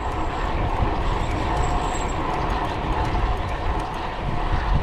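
Wind buffeting the microphone with a low rumble, over the steady hum of road bike tyres rolling on asphalt.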